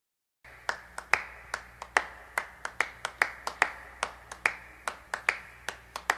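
A series of sharp, uneven clicks, two or three a second, over a faint steady low hum. The clicks start about half a second in, out of silence.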